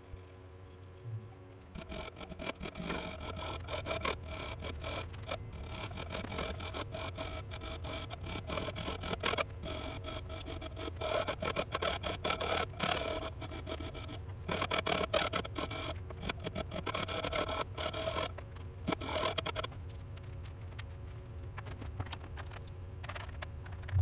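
A hand tool scraping and filing along the spiral grooves of a Black Walnut wand handle in quick, irregular strokes. The strokes start about two seconds in and thin out near the end.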